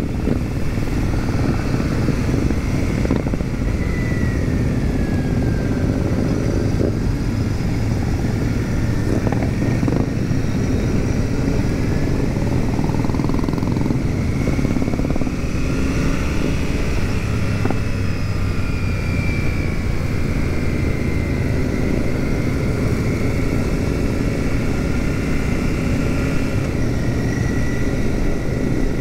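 Motorcycles riding in a large group: the Royal Enfield Super Meteor 650's 648 cc parallel-twin engine runs steadily at cruising speed amid the engines of many other Royal Enfields, under a constant rush of road and wind noise. Faint higher engine tones slowly rise and fall as the bikes around it change speed.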